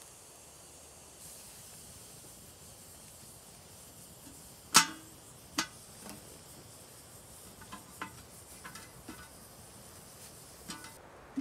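Fire hissing steadily while a homemade steel cylinder stove on a metal tripod is handled: one loud ringing metal clank, a second shortly after, then several lighter metallic clinks. The hiss cuts off suddenly near the end.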